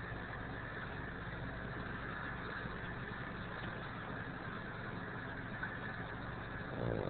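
Pug snoring steadily, with a brief louder sound near the end.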